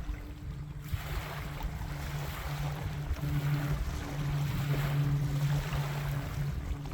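A distant engine droning steadily at a low pitch, swelling and fading slightly, under wind rushing on the microphone.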